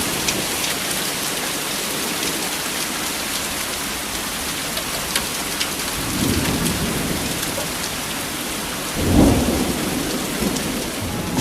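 Heavy thunderstorm rain pouring steadily, with thunder rumbling about six seconds in and again, louder, about nine seconds in.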